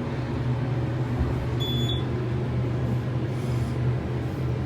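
Elevator car running with a steady low hum. A single short, high electronic beep sounds a little over a second and a half in.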